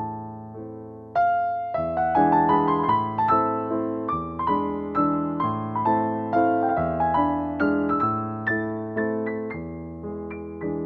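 Background piano music: a gentle melody of struck notes that ring and fade, growing fuller about a second in.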